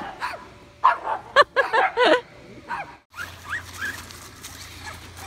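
A quick string of short, high-pitched yelps and squeals from young girls about a second in. An abrupt break follows, leaving a quieter, steady low background hum with a few faint calls.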